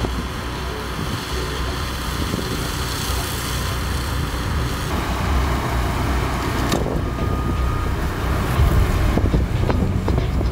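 John Deere tractor running steadily while its rear flail mower cuts long dry grass: a low diesel engine rumble under a steady rushing noise.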